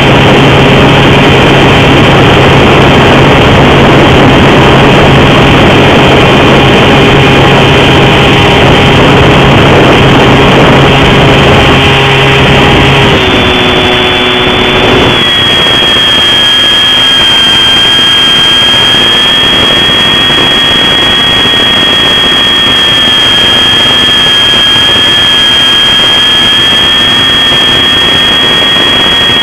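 Bixler II model plane's electric pusher motor and propeller heard from the onboard camera, running steadily with a loud rush of air. About halfway through the deeper hum drops away, leaving a high steady whine whose pitch drifts slightly.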